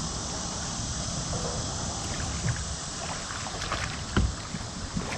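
Wind on the microphone and water lapping around a kayak, with scattered light clicks and knocks and one louder knock a little after four seconds in.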